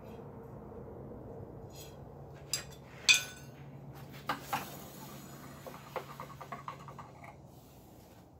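Steel bar stock and hand tools clinking against the steel anvil as they are handled and set down, the sharpest clank about three seconds in, followed by a run of light ticks. A steady low hum runs underneath.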